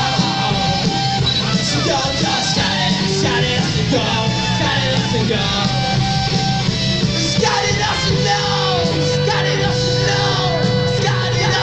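Punk rock band playing live: distorted electric guitars and drums, with shouted vocals over them.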